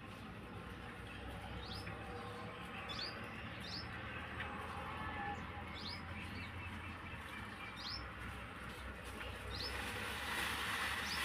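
A small bird chirping: short, high notes, each a quick upward flick, about one every second or two, over a steady background hiss.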